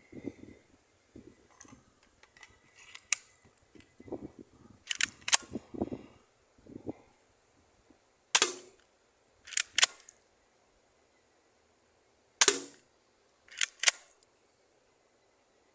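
Spring-powered airsoft Glock pistol: quiet handling clatter and clicks, then several sharp snapping shots a second or more apart in the second half, some in quick pairs.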